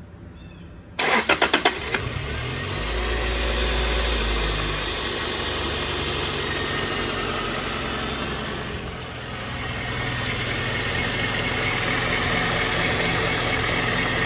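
Toyota Celica GT-S 1.8-litre four-cylinder engine cranked over by the starter for about a second, then catching and running on steadily at idle, with the new crank pulley fitted.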